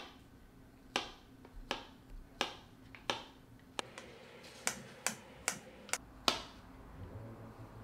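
Chef's knife slicing a banana on a plastic cutting board: the blade taps on the board about eleven times, at first roughly every second and closer together later.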